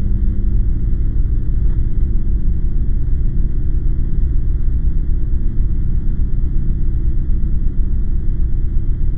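Steady, loud low rumble with a fluttering texture, its energy all in the low range.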